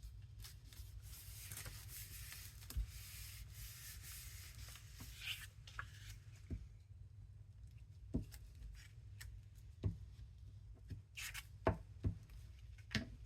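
Paper being handled at a craft table: a soft rubbing and sliding of paper for the first five seconds or so, then scattered light taps and clicks.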